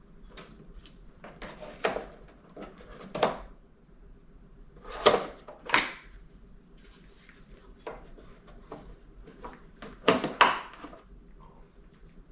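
Scattered clicks, knocks and rattles of hands and tools working on a car's plastic headlight housing and its fasteners, with a handful of sharper knocks.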